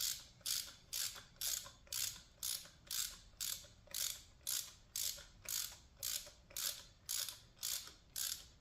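Hand ratchet on an extension clicking in steady back-and-forth strokes, about two and a half a second, running a new spark plug down its threads before the crush washer seats.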